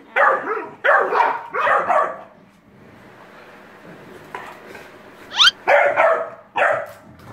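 Pit bulls barking while they play-fight: four short barks in quick succession, a pause, then a high rising yelp and two more barks near the end.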